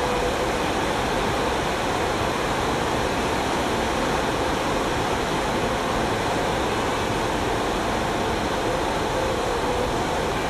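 Heavy rain pouring steadily, a constant even hiss with no breaks.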